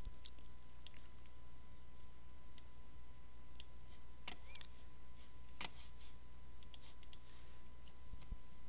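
Computer mouse clicks, scattered and a few quick ones together about seven seconds in, over a steady low electrical hum with a faint steady high tone.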